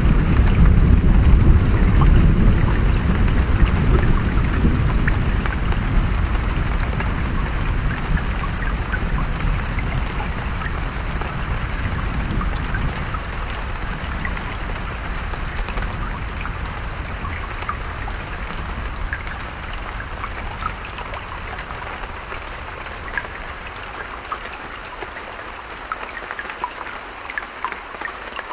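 Steady rain with scattered drops ticking, under a deep rumble of thunder that is loudest at the start and slowly dies away.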